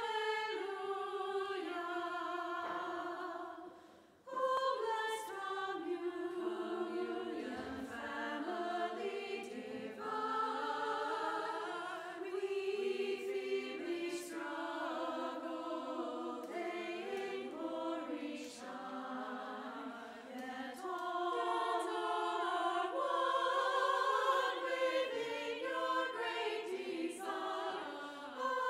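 Women's choir singing sustained notes in several harmonising parts, with a short break between phrases about four seconds in.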